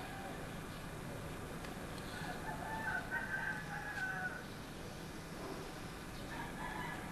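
A long, held animal call about two seconds in, lasting about two seconds, with another starting near the end, over a steady low hum.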